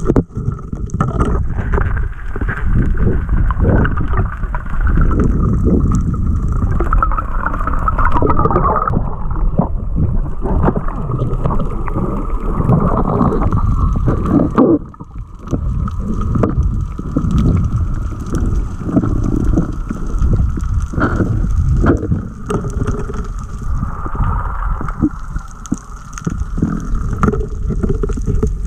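Underwater noise picked up by an action camera in its waterproof housing: a muffled, irregular rumble and gurgle of water moving around the camera, briefly dropping away about fifteen seconds in.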